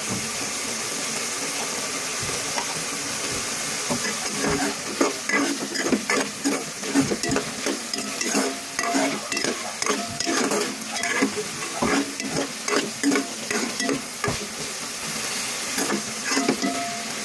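Carrots, potatoes and onions sizzling in a metal pot. From about four seconds in, a spatula stirs them with repeated irregular scrapes and knocks against the pot.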